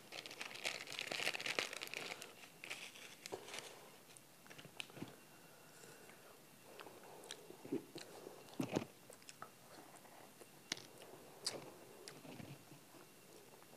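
A plastic ice-pop wrapper crinkles and tears open for the first few seconds. Then someone bites and chews a frozen ice pop, with scattered sharp crunches and mouth clicks.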